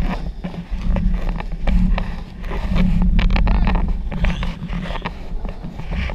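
Sea-Doo personal watercraft running under way at speed, a steady engine drone with repeated splashes and knocks as the hull hits the chop. It surges louder about two and three seconds in.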